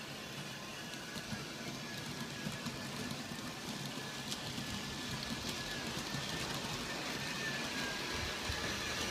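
G scale model train running along its track: a steady rolling clatter of wheels on the rails, with a thin steady whine from the locomotive's motor.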